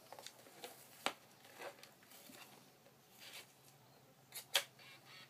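Hands handling a plastic Panasonic Palmcorder VHS-C camcorder: soft rustling and scattered clicks as it is turned over and its fold-out LCD screen is worked, with a sharp click about a second in and a louder pair of clicks near the end.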